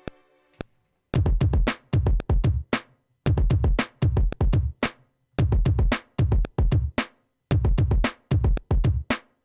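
Sampled drum-machine beat coming in about a second in after a held synth chord cuts off: short clusters of hard, bass-heavy kick and snare hits separated by brief gaps.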